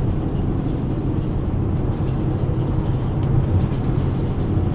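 Steady low rumble of a vehicle on the move, engine and tyre noise heard from inside the cabin.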